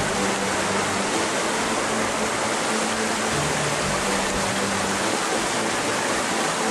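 A river rushing steadily over rocks, with low, held music notes changing every second or so underneath.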